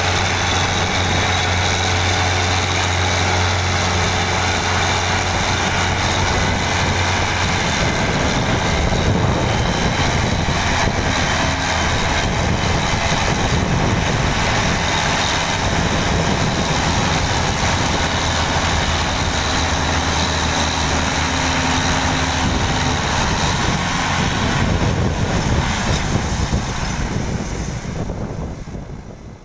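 Belarus 510 tractor diesel engine, with a second tractor's engine close by, labouring under a heavy load while hauling a sugarcane-laden trolley. An even hum for the first few seconds turns into a rougher, heavier rumble, and the sound fades out near the end.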